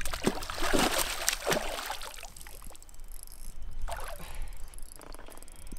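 A hooked bass thrashing at the water's surface: a run of splashes over the first second and a half or so, then softer water sounds.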